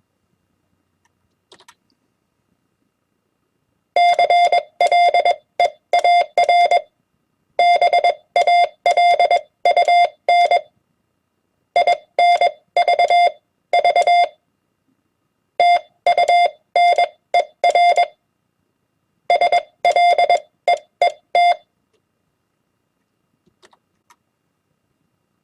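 Morse code (CW) sidetone sent at 20 words per minute: one steady beep of a single pitch keyed into short dots and longer dashes. It starts about four seconds in and comes as five groups of characters with pauses of about a second between them, falling silent a few seconds before the end.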